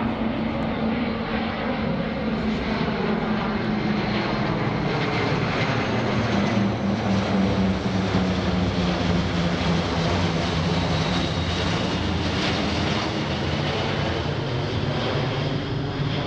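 A C-17 Globemaster III's four turbofan engines and a C-47 Skytrain's twin radial piston engines drone together as the formation passes low overhead. The sound swells to its loudest about halfway through, and the low engine tones slide gradually down in pitch as the aircraft move past.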